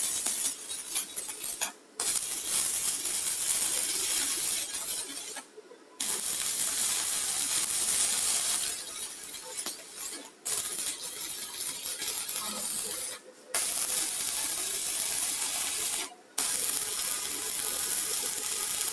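Electric arc of stick welding with a 3.2 mm electrode, fed by a mini 250 stick welder: a steady, sharp crackle and sizzle. The arc breaks off for a moment about five times, each time starting again at once.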